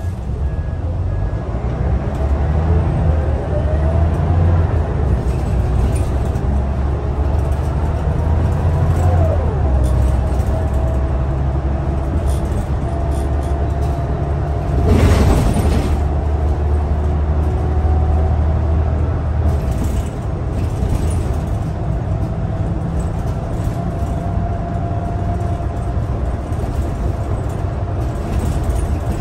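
Scania L94UB city bus under way, heard from inside the saloon: steady engine rumble with a gearbox whine that shifts in pitch. About fifteen seconds in there is a hiss of released air lasting about a second. The low rumble eases a little after twenty seconds.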